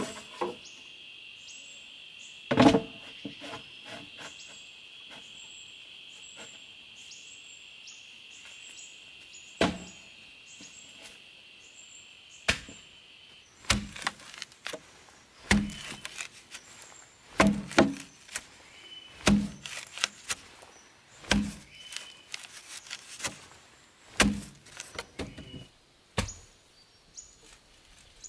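Bamboo pole driven into the earth by hand: repeated dull thuds about once a second through the second half. Before that, a steady high insect drone with faint chirps over it, cut by one loud knock of bamboo early on, stops abruptly about halfway through.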